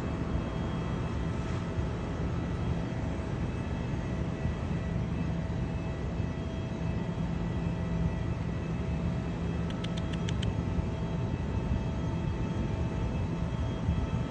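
A steady mechanical drone with a low hum and a few faint steady tones above it. About ten seconds in comes a quick run of faint high ticks.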